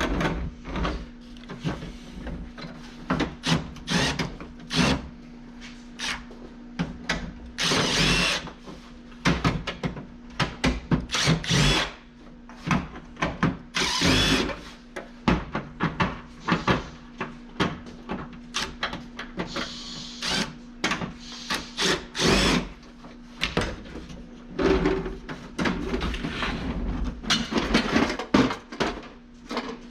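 An old dehumidifier being dismantled for scrap: a busy run of knocks, clicks and clatter of its plastic and metal parts, with a few short bursts of a power tool, over a steady low hum.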